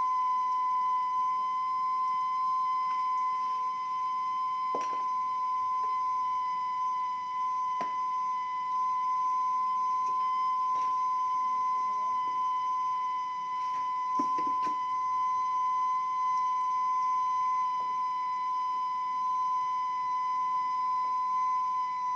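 Steam whistle of a kue putu seller's steamer: one steady, unwavering whistle from steam escaping the boiling pot. A few faint knocks sound over it.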